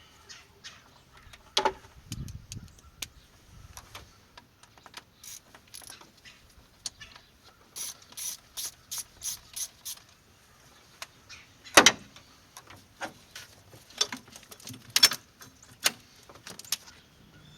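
Socket ratchet clicking in short runs while loosening a clamp on the throttle body, with a regular stretch of about three or four clicks a second and one louder single clack later on.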